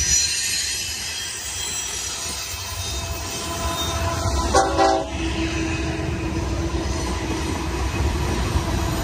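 Double-stack container train rolling past at close range, its steel wheels squealing thinly over a steady rumble. A short diesel locomotive horn blast sounds about halfway through, and the rumble of BNSF diesel locomotives grows as they pull alongside near the end.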